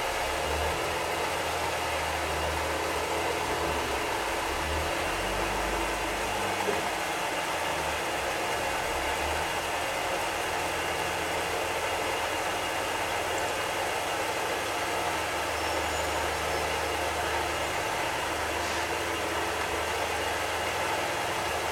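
Small benchtop metal lathe running steadily at about 1000 RPM under power feed, with a constant motor and gear whine, while its tool takes a light final cut of about three thousandths of an inch off an Edison wax phonograph cylinder.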